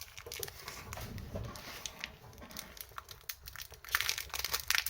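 Foil wrapper of a Pokémon trading card booster pack crinkling as it is handled and opened, with scattered crackles that grow denser near the end.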